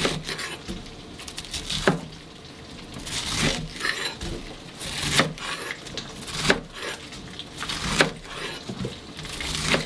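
Kitchen knife cutting through a head of cabbage on a wooden cutting board: a crisp crunch through the leaves between sharp knocks of the blade on the board, about one every second and a half.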